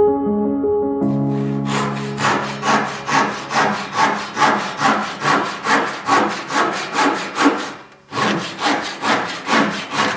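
Handsaw cutting through the end of a wooden spray rail on a boat hull, with steady back-and-forth strokes at about three a second. The strokes pause briefly near the end, then start again.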